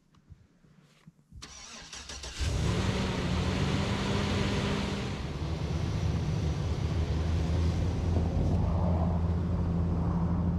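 Snow-covered Chevrolet pickup's engine cranked about a second and a half in, catching a second later and running at a high cold-start idle. The idle settles a little lower about five seconds in and then runs steadily.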